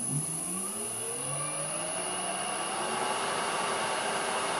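A VFD-driven three-phase electric motor, running on its own with no lathe attached, speeds up: its hum rises in pitch over the first couple of seconds and then holds steady. It runs smoothly, with no vibration. A thin, steady high-pitched whine sits above it.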